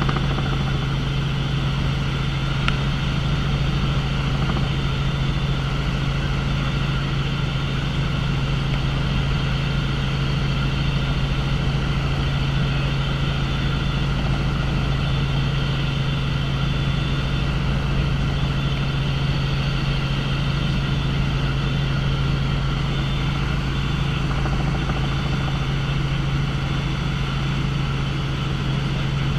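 Tour helicopter in steady flight: a constant engine and rotor drone with a strong, unchanging low hum.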